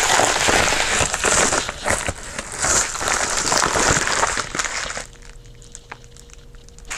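Plastic bubble mailer crinkling and rustling as hands tear it open and pull the contents out, stopping about five seconds in.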